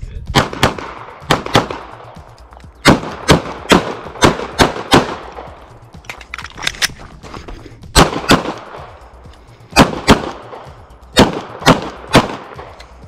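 9mm Glock 48 pistol fired rapidly, mostly in quick pairs of shots, with short pauses between strings as the shooter moves to new targets.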